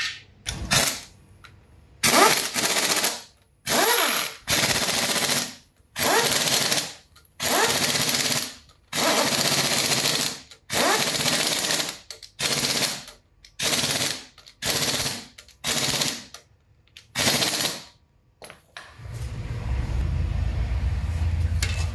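Pneumatic impact wrench hammering in about a dozen short bursts, each under a second, running the flywheel bolts onto the crankshaft. A steady low rumble starts near the end.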